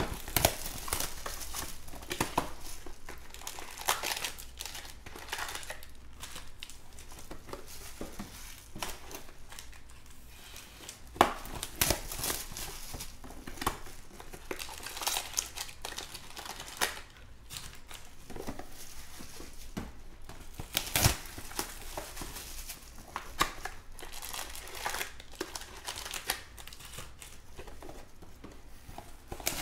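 Clear plastic shrink wrap being torn off sealed trading-card boxes and crumpled by hand: irregular crinkling and crackling, with a few sharper snaps.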